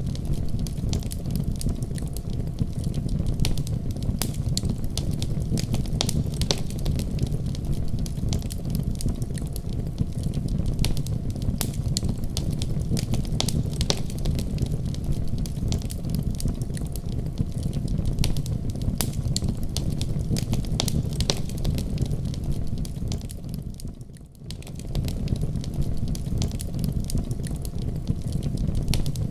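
Wood fire burning in a fireplace: a steady low rumble of flames with frequent irregular crackles and pops. The sound fades sharply for a moment about three-quarters of the way through, then returns.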